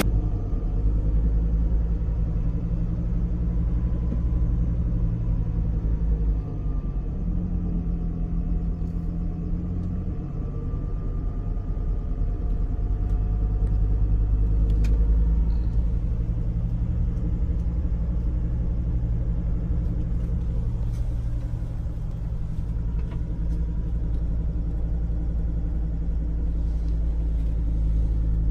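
Steady low rumble of a vehicle driving slowly, heard from inside its cabin: engine and road noise.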